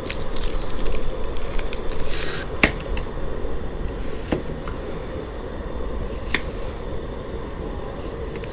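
Kitchen knife slicing a shallot on a cutting board: a quick run of crisp crunching cuts for about two seconds, then three single knocks of the blade on the board spaced out over the rest. A steady low hum runs underneath.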